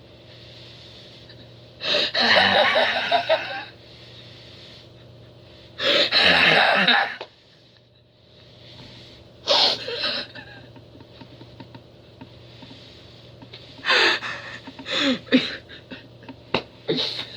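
A person's loud, breathy gasps, in bursts of one to two seconds a few seconds apart, then a run of shorter, sharp breaths and clicks near the end.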